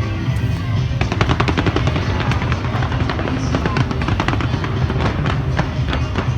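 Fireworks going off in rapid bursts, many a second, growing denser about a second in, over loud music with a heavy bass.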